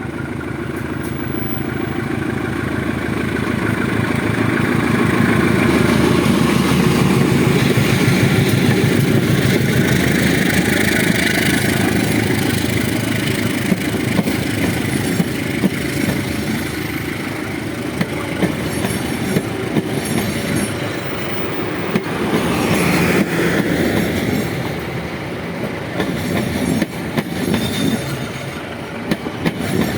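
A CC 203 diesel-electric locomotive running past with a passenger train, its engine noise swelling to a peak and then easing off as it goes by. In the second half the train's cars roll past with sharp wheel clacks over the rail joints.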